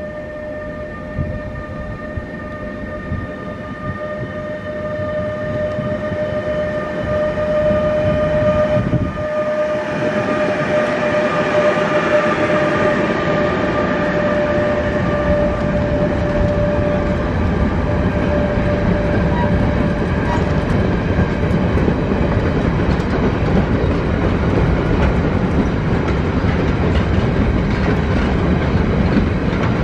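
Electric freight train of Lineas class 186 (Bombardier TRAXX) locomotive 186 454 and a long rake of covered wagons passing close by. The wheels rumble and clack over the rail joints, getting louder about a third of the way in. A steady whine of several tones fades out around the middle.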